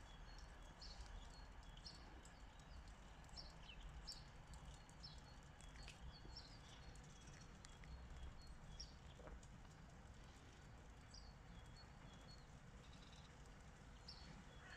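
Near silence: faint outdoor background with a low rumble, and short high chirps of small birds repeating every second or so.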